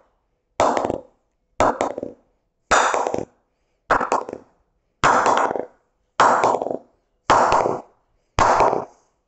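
A wooden mallet knocking the face of a new cricket bat, about once a second, eight knocks with a short ring after each, some of them quick double taps. It is a mallet test of the sweet spot, worked from the toe up the blade; the owner hears a very wide sweet spot.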